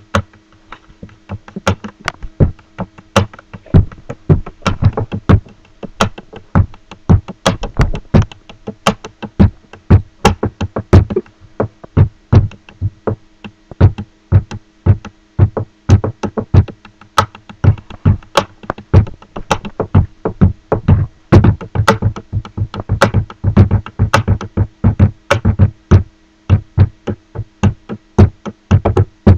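Pen tapping: a beat drummed on a wooden tabletop with a pen and hands, a fast, dense run of sharp clicks and knocks mixed with deeper thumps in a drum-like pattern.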